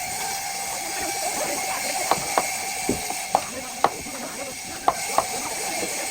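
A steady mechanical whirring hiss with a faint held tone, overlaid by scattered sharp clicks and taps.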